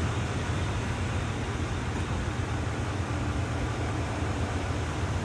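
Steady low hum under an even hiss of background noise, unchanging throughout.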